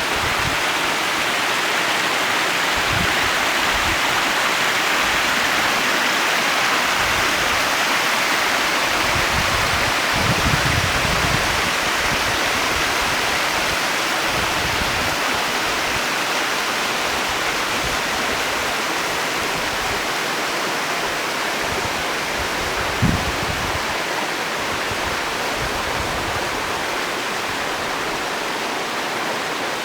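A waterfall pouring, a steady rush of falling water, with a few brief low thumps; the loudest comes about 23 seconds in.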